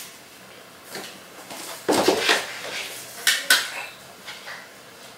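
Metal measuring cups clinking and a plastic canister lid being handled on a counter: two short spells of clatter, about two seconds in and again about three and a half seconds in.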